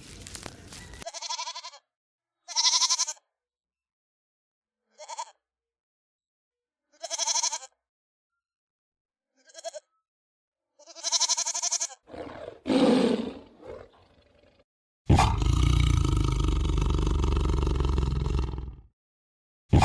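Farm animal bleating: six short, high calls at irregular intervals, then a lower rough call, and about fifteen seconds in a long, loud, rough call lasting some four seconds.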